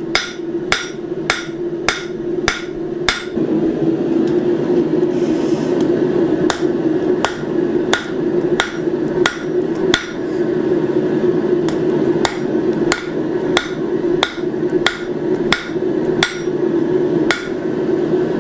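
Blacksmith's hammer striking round bar stock on an anvil, forging flats onto the bar: a steady series of blows, about three a second at first, then a brief lull and about two a second, over a steady low hum.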